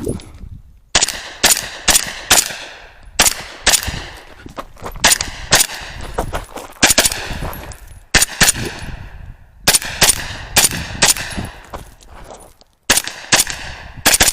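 Pistol-caliber carbine (a 10.5-inch short-barrelled rifle) firing quick pairs and short strings of shots, with brief pauses between groups as the shooter moves between target arrays on a timed competition stage.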